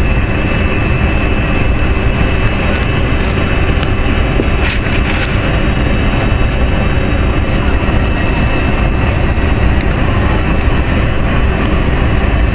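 Steady cabin noise inside a CRJ-200 regional jet: the even rumble of its rear-mounted turbofans and airflow, with a steady high whine over it and a few faint clicks about five seconds in.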